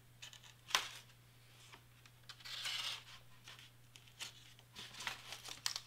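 X-Acto-type craft knife cutting through black cardstock on a cutting mat: short scratchy scrapes of the blade and rustling of the sheet. A sharp click comes about a second in, and smaller clicks follow near the end.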